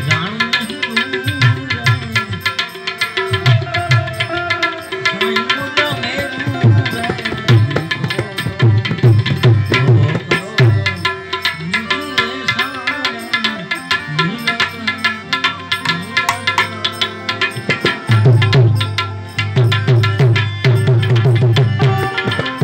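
Harmonium playing held reedy chords over a fast, rhythmic hand-drum beat, with a man singing over it in places.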